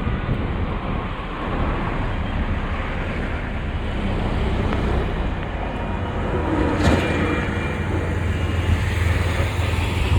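Steady low rumble of vehicle engines and road traffic, with one brief sharp noise about seven seconds in.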